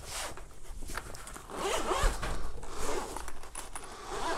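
Zipper on a black semi-rigid Hohem gimbal carrying case being pulled open around its edge in several short rasping pulls.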